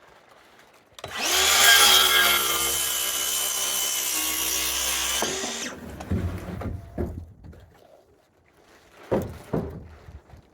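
Power saw cutting through a piece of framing lumber: the motor whines and the blade rasps steadily for about four and a half seconds, then stops. A few sharp knocks of wood follow, a pair of them near the end.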